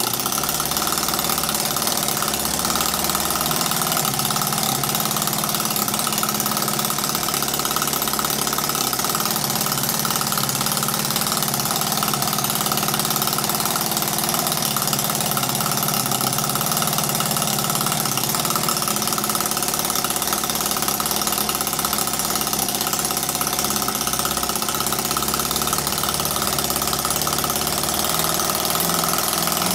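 10cc single-cylinder, water-cooled flathead petrol model engine of Edgar Westbury's Whippet design, running steadily with no stops or changes in speed.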